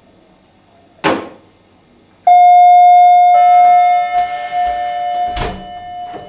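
Doorbell chime ringing loudly: a two-note ding-dong, the second note joining about a second after the first, both ringing on and slowly fading. A single sharp knock comes shortly before the chime, and another near the end.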